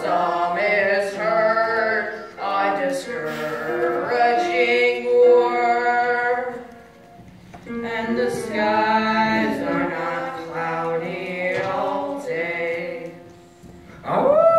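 Young voices singing a number from a stage musical, in phrases of held notes broken by two short pauses. Near the end a voice rises in a long upward glide.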